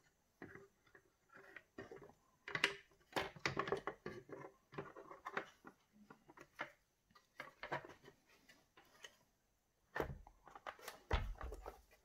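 Plastic housing of an electric chainsaw being handled and pressed together: irregular light clicks and taps of plastic parts. Near the end come a few heavier, low knocks.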